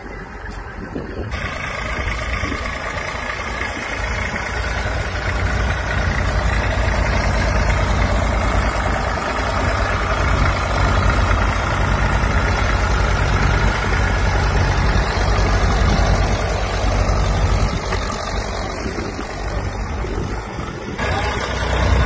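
Vintage tractor engines running steadily while pulling ploughs, with a heavy low rumble. The sound changes abruptly about a second in and again near the end, where one clip cuts to another.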